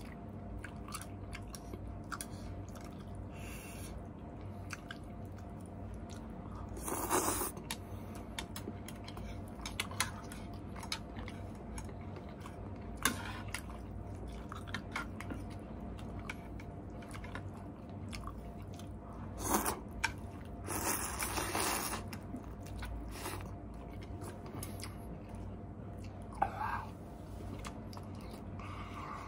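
Close-up mouth sounds of eating instant noodles: chewing with many small wet clicks, and a few louder noisy bursts about seven seconds in and again around twenty seconds in, over a steady low hum.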